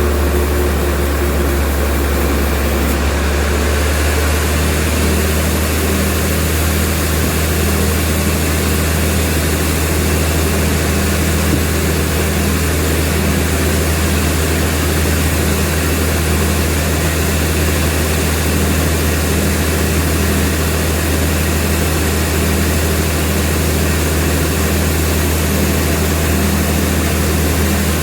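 Sawmill machinery running steadily with a loud, low drone, its pitch settling slightly about four seconds in.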